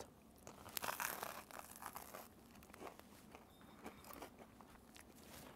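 Faint crunching and chewing as a bagel spread with cream cheese is bitten into and eaten, loudest about a second in.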